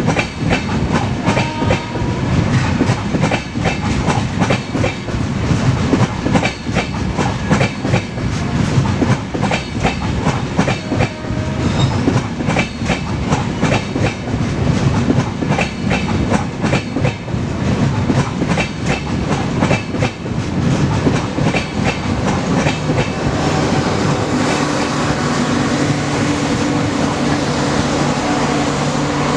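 Coaches of an AC express train rolling past at speed, the wheels clattering over rail joints in a fast, irregular clickety-clack. Near the end the clatter thins out and a steady low hum takes over.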